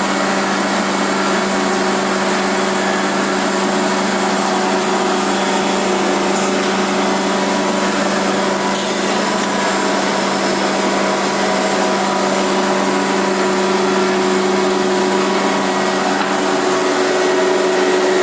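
Pade multi-spindle through-feed milling and sanding machine running steadily: a continuous machine whir with a steady hum and hiss that does not change.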